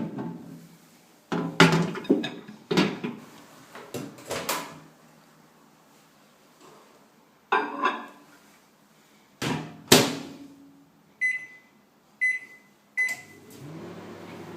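Microwave oven being handled: a series of knocks and clunks, then three short keypad beeps about a second apart. Near the end the oven starts running with a steady low hum.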